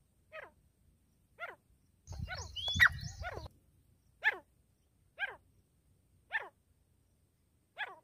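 Grey francolins giving short, downward-sliding call notes, about one a second. From about two to three and a half seconds in comes a louder, noisier burst with a brief rising whistle.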